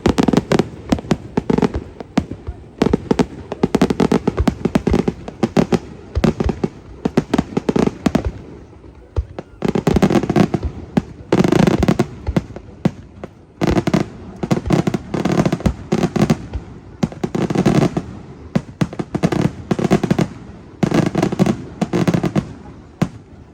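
Aerial fireworks bursting in rapid salvos: dense volleys of sharp bangs and crackle in clusters every second or two, stopping near the end.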